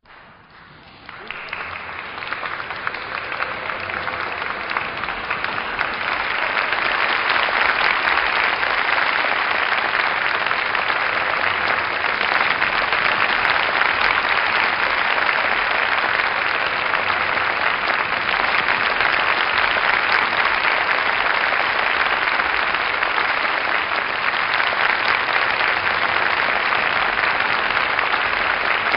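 Dense, steady patter of many small sounds, fading in over the first few seconds and then holding steady.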